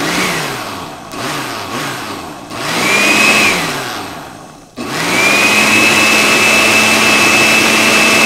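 Countertop blender pureeing boiled broccoli with some of its cooking water: pulsed three times, the motor speeding up and slowing down each time, then left running steadily at full speed from about five seconds in.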